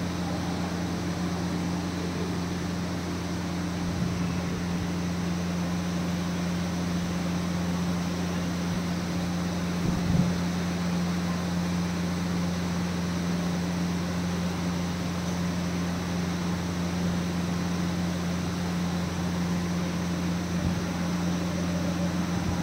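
Steady low mechanical hum with an even hiss over it, from machinery running continuously; a soft low bump about ten seconds in.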